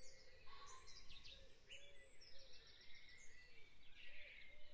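Faint dawn-chorus field recording: several birds singing, with high chirps and trills over a run of low repeated calls.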